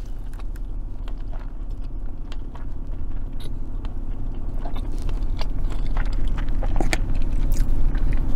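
Close-miked eating of spaghetti in marinara sauce: noodles slurped in and chewed, with many small wet mouth clicks, over a steady low hum.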